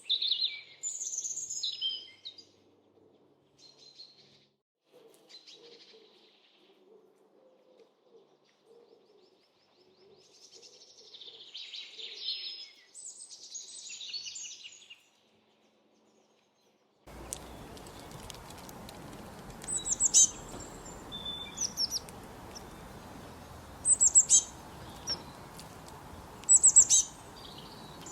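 Songbirds singing and chirping in bright, high phrases. The song breaks off for a couple of seconds, then resumes over a steady background hiss as short, sharp chirps repeated every few seconds.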